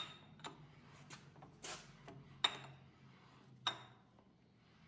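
Metal clicks and clanks from a 6-inch Vevor milling vise as its handle is cranked to run the jaw. There are about six sharp, irregular clicks, and two of the later ones ring briefly.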